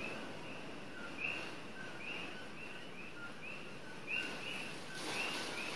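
Chorus of coqui frogs calling at night, many short two-note chirps repeating several times a second, over a steady rush of wind that swells near the end.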